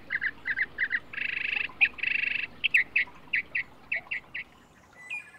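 Wildlife chirping: a quick run of short chirps, several a second, broken by two buzzy trills about one and two seconds in. The calls stop a little before the end.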